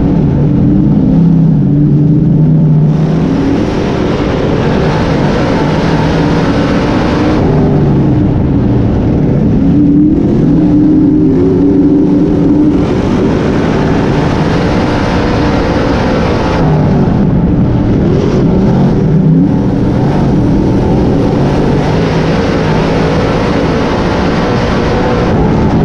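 358 cubic-inch small-block V8 of a dirt modified race car under racing load, heard from inside the open cockpit. It runs loud throughout, its pitch rising and falling again and again as the throttle is opened and lifted lap after lap.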